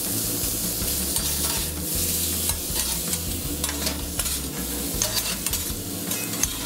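Venison and chopped vegetables sizzling on a flat-top griddle, with a metal spatula scraping and clacking against the steel as the food is pushed and turned.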